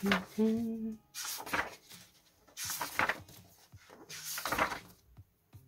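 Paper pages of a large hardcover picture book being turned one after another: four rustling page flips, roughly a second or so apart.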